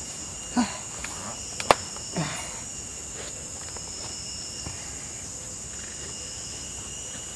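Steady high-pitched chorus of forest insects, with a few soft rustles and knocks from shoes being pulled off and set down on the ground mat, the sharpest a sudden click a little under two seconds in.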